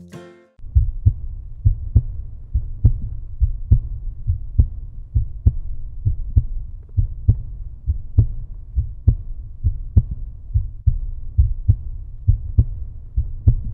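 Outro soundtrack: a low, heartbeat-like pulse starting about half a second in, with a strong beat a little faster than once a second and fainter beats in between.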